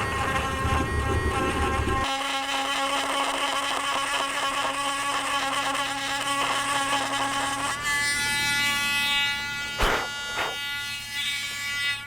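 Dremel rotary tool running at a lower speed setting, a steady high whine, while it works an edge of hardened body filler. A rougher grinding noise in the first two seconds stops, the whine changes about eight seconds in, and there is one sharp knock near the end.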